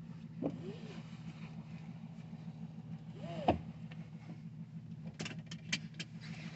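Steady low hum of a stationary car, its engine idling, heard from inside the cabin. Two short squeaks that rise and fall come about half a second and three seconds in, the second with a knock, and a quick run of sharp clicks follows about five seconds in.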